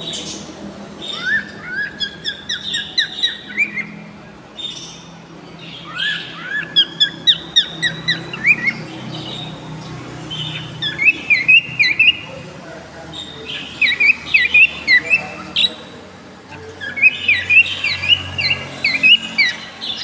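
Cockatiels calling in a cage: repeated bouts of quick, short rising chirps, each run lasting a few seconds with brief pauses between.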